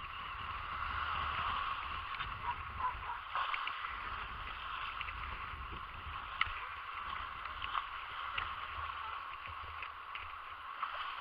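Small waves washing and sloshing close up around a camera held at the water's surface, a steady churning wash with a low rumble underneath and a few faint clicks.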